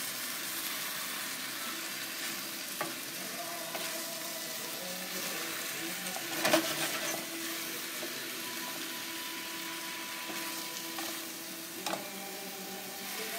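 Sliced vegetables (mushrooms, bell peppers, cherry tomatoes) sizzling in oil in a stainless steel sauté pan as a wooden spoon stirs them, with a few light knocks of the spoon against the pan, the clearest about halfway through.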